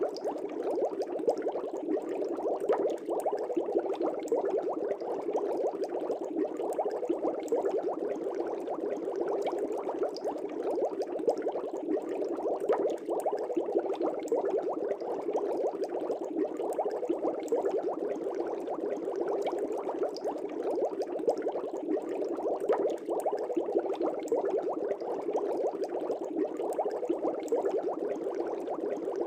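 Fish tank water bubbling steadily: a dense, continuous stream of small bubble pops and gurgles.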